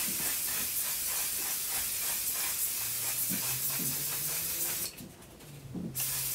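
Handheld spray bottle misting onto a face in a long, continuous hiss. The hiss breaks off for about a second near the end, then starts again.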